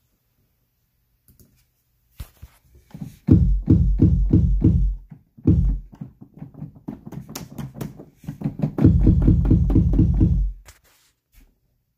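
Short, deep electronic notes played live on a keyboard driving Reason 10 software, coming in quick runs of about four a second with a sharp attack. There are two main runs, starting about three seconds in and again near nine seconds, with sparser notes between.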